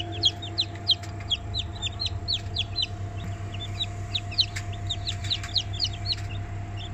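A tray of newly hatched Black Mottled Brahma chicks peeping constantly in an incubator, many short high peeps a second overlapping, over the incubator's steady hum.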